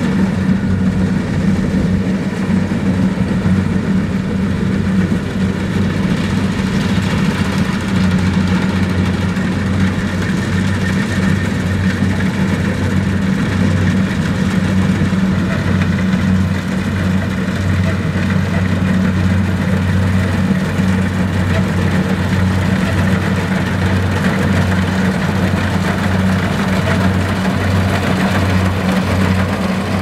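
Kubota DC-70 Plus rice combine harvester's diesel engine running steadily as it cuts and threshes rice, a constant low drone.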